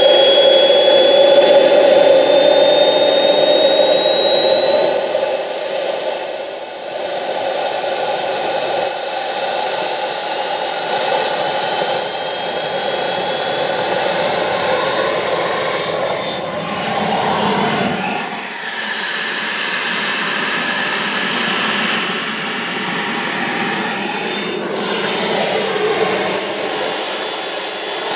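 Model jet turbine engine running: a high whine climbs smoothly in pitch for about fifteen seconds as the turbine spools up, then holds nearly steady over a constant rush of exhaust.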